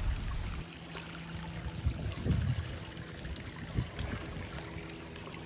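Water trickling in a garden pond or water feature, a steady running-water sound with a steady low hum underneath.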